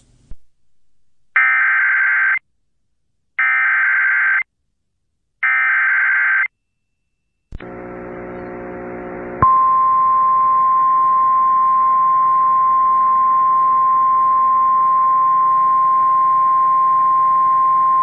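Emergency Alert System broadcast signalling: three one-second bursts of warbling data tones, the digital header that opens the alert, then a rough buzz for about two seconds, then a steady single-pitch attention tone held for about nine seconds.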